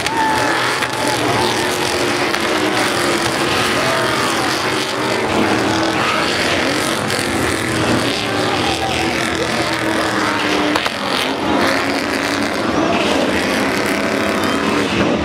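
Several Stadium Super Trucks' V8 race engines running hard as they race over the dirt jumps, their pitch rising and falling as the drivers rev and lift, over a steady wash of noise.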